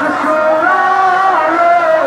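A voice singing a slow devotional chant over a horn loudspeaker, holding long drawn-out notes that bend in pitch.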